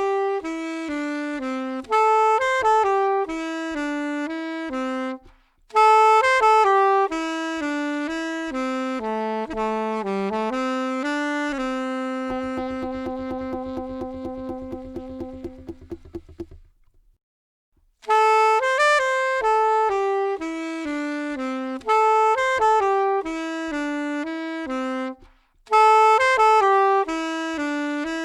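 Solo saxophone playing a slow melody of stepped notes in phrases that start loud and fade. Around the middle it holds one long wavering low note before breaking off for about a second. There is also a shorter break about five seconds in.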